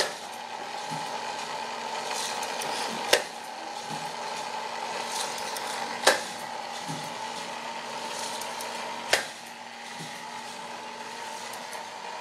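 Small electric motor and plastic gears of a K'nex roller coaster model running with a steady whine, with a sharp click about every three seconds.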